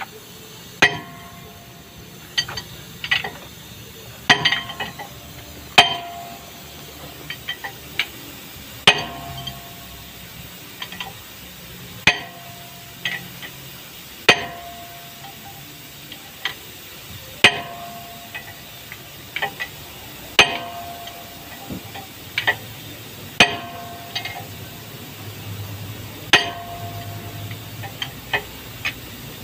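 A hammer striking a steel bar held against a truck's brake drum and wheel hub, with one blow every second or two and lighter taps between. Each hard blow rings briefly with a metallic tone.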